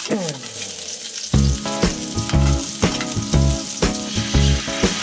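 Garlic and onion sizzling and frying in hot oil in a wok as they are stirred, with sardine sauce poured into the hot pan near the end. Background music with a steady bass line plays underneath.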